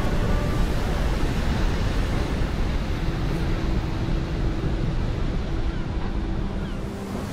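Heavy surf: large waves breaking and crashing onto a beach in a continuous rushing wash, with wind.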